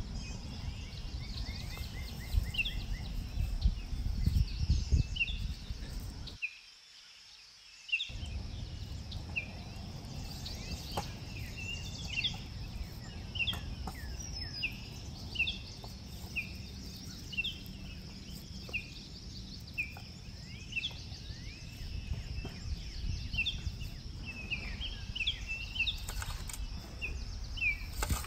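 Outdoor ambience of small birds chirping, many short chirps repeating throughout, over a low rumble. The sound drops out briefly about six and a half seconds in.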